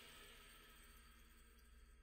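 Near silence: the last held notes of background music fading away.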